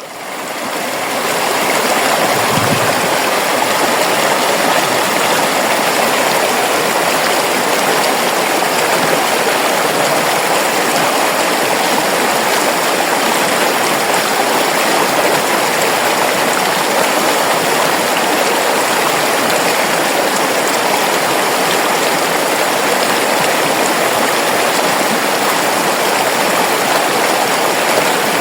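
River water flowing in a steady, full rush. It fades in over the first couple of seconds.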